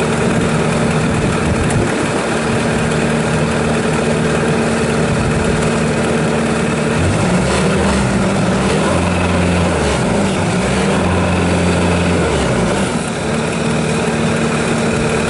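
Bobcat S590 skid steer loader's diesel engine running steadily. About seven seconds in, its note shifts lower and wavers for about five seconds as the machine works, then settles back to the first steady note.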